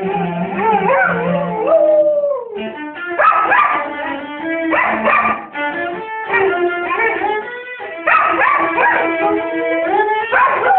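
A cello playing sustained bowed notes while a dog howls and whines along with it, its voice sliding up and down over the notes.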